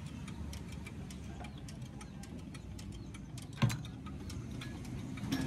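Light metallic clicks and ticks from a tractor differential's crown wheel and case being handled, with one sharp metal knock about three and a half seconds in as the assembly is set down into the housing, over a steady low background rumble.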